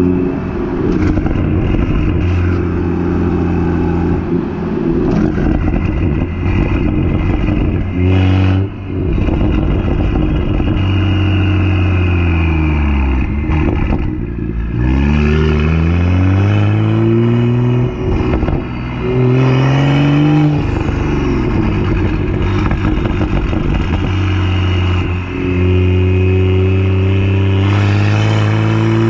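BMW M2's N55 turbocharged straight-six heard through its Akrapovic exhaust while driving. It drones steadily at first. About halfway through the revs drop, then climb in three rising pulls broken by quick gear changes, and it settles back into a steady cruise.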